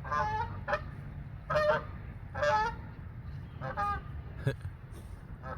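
Geese honking: about five loud honks at uneven intervals, sounding like a dog.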